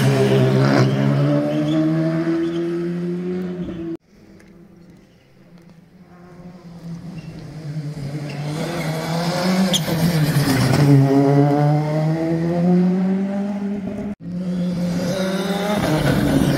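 Rally cars passing at speed, one after another, engines revving hard, the pitch rising under acceleration and dropping as each goes by. The sound breaks off abruptly about 4 s in and again near 14 s. The middle pass starts faint and builds to the loudest point.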